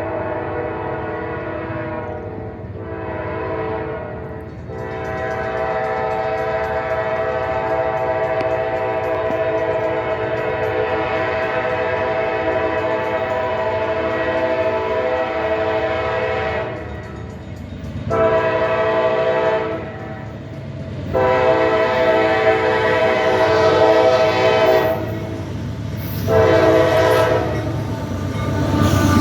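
Freight locomotive air horn sounding a long, loud blast with two brief breaks, then several shorter and longer blasts separated by short gaps, over the steady rumble of the train.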